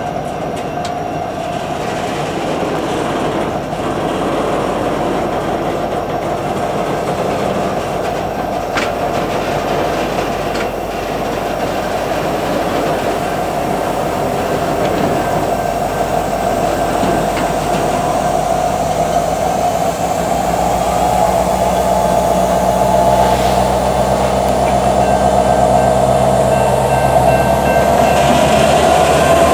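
EMD 16-710 diesel prime mover of an SD70ACe locomotive running, with a steady whine over the engine. The sound grows gradually louder, and a deeper engine note comes in about two thirds of the way through.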